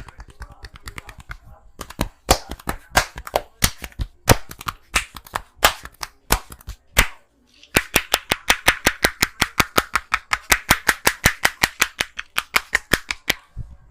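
Hands slapping rhythmically in a head and neck massage: after some faint quick taps, single loud slaps about three a second, then, following a short pause, a fast run of about eight strikes a second.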